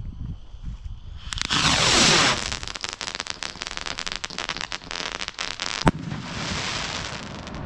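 Caractacus Potts Ultron pack firework rockets going off: a loud whoosh with a falling pitch about a second and a half in, then a long run of crackling. A single sharp bang comes near six seconds, followed by another whoosh.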